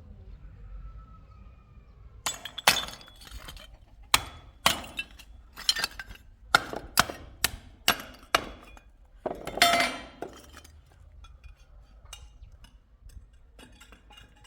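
About a dozen sharp clinking knocks of hard material being struck or broken, spread over several seconds, then a longer crash about ten seconds in.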